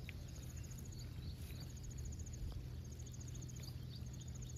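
Outdoor ambience: a high, rapidly pulsing chirp repeats in short runs about every second and a half, over a steady low hum.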